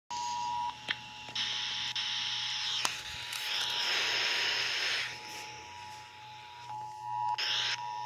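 Portable radio sounding the Emergency Alert System's steady two-tone attention signal, the alert that precedes the test announcement. Static hiss rises and falls over it, loudest around four seconds in, with a couple of sharp clicks.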